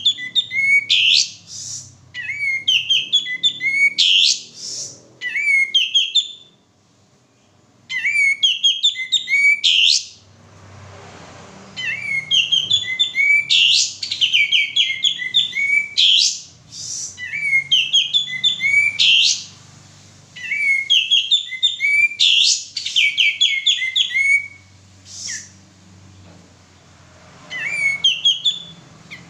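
Male kapas tembak bulbul singing vigorously: repeated phrases of rapid, high chirping notes, one to two seconds each, with short breaks and two longer pauses.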